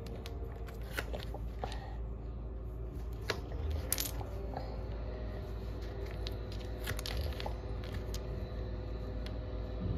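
Small painted wooden domino blocks clicking and tapping against one another and against a hard tiled floor as they are picked up, gathered in the hand and set upright; a scattering of short, light clicks.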